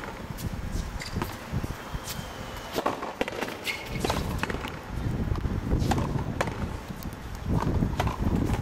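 Frontenis rally: the small rubber ball striking the racket strings and the fronton's walls, sharp cracks at irregular intervals in the walled court, over a low rumble.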